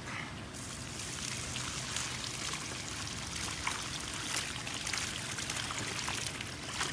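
Water poured from a plastic bucket onto grass, splashing on the ground; the pour starts about half a second in and grows a little heavier toward the end.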